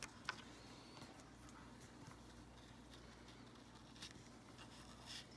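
Near silence: faint room hum, with a few light clicks as a wheat penny is picked up and turned over on a wooden tabletop.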